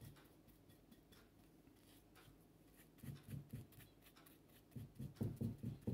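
Faint scratchy strokes of a paintbrush brushed over a napkin-covered terracotta pot, with a few louder soft knocks of handling later on.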